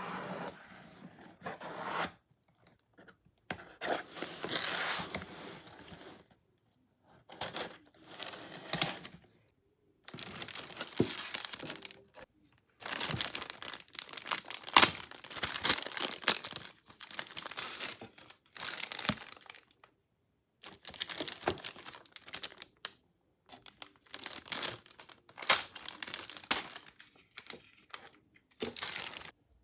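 Packaging being torn open and crinkled by hand, in repeated bursts of tearing and rustling broken by short silences.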